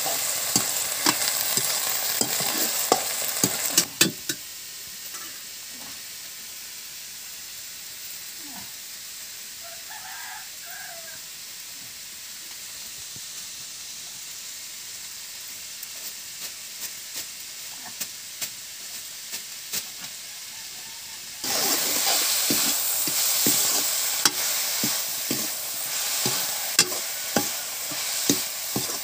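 Chopped cabbage sizzling as it stir-fries in a metal wok, with the metal spoon scraping and clicking against the pan. The sizzling and scraping are loud for the first few seconds, drop to a quieter stretch with scattered taps, then come back loud about three-quarters of the way in, once spice powder has been added.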